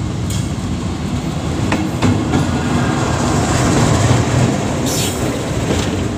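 Diesel-hauled passenger train pulling slowly into a station at close range: the locomotive goes by, then the coaches roll past with a steady low rumble, louder toward the middle, and a few wheel clicks over the rail joints about two seconds in.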